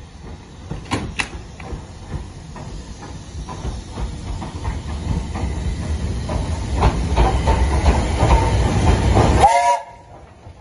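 BR Standard Class 4 4-6-0 steam locomotive 75014 running into the station, the rumble and clatter of its wheels on the rails growing steadily louder as it draws near, with a few sharp clicks about a second in. The sound cuts off suddenly near the end.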